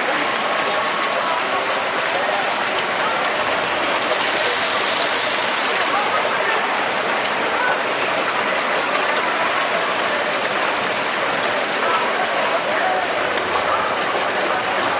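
Continuous splashing of several freestyle swimmers racing, with a faint murmur of voices mixed in.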